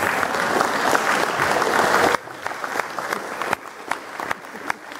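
Audience applause, dense and loud, which breaks off abruptly about two seconds in, leaving a few scattered single claps.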